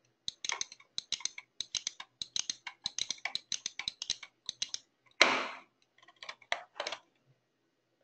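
Quick runs of computer keyboard and mouse clicks, with a short burst of noise about five seconds in.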